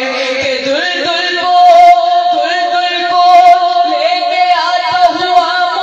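A boy's high voice singing a manqabat, an Urdu devotional poem, into a microphone. It steps up in pitch about a second in, then holds one long, slightly wavering note.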